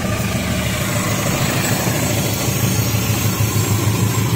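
Diesel locomotive engine running, a steady low hum.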